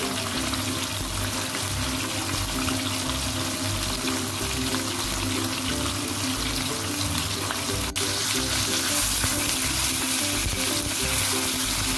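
Whole Indian mackerel sizzling as they shallow-fry in hot oil in a nonstick wok, the sizzle louder after a short break about two-thirds of the way through. Background music plays under it.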